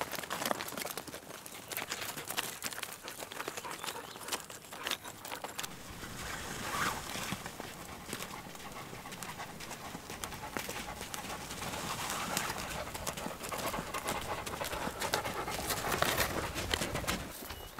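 Pack goats' hooves and a hiker's footsteps on a rocky dirt trail, an irregular run of small steps and knocks, with leafy brush swishing against the goats' packs.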